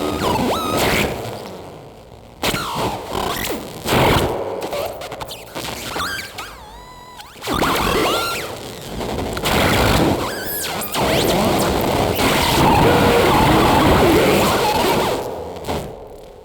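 Experimental electroacoustic noise music: dense, shifting noise textures with gliding tones that start and stop abruptly. A long dense stretch builds through the middle and fades near the end.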